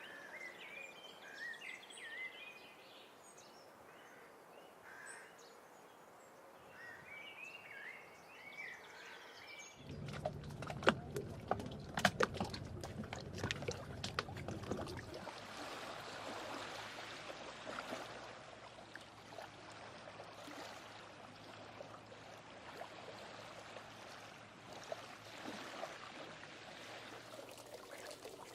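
Layered ambient sound effects: birds chirping for about ten seconds, then an abrupt switch to harbour-side sounds. The harbour part has a cluster of knocks and clicks over a low hum, which fades after a few seconds into a steady wash of water-like noise.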